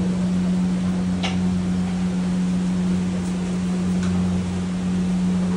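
Steady low machine hum, with a few light clicks, the clearest about a second in.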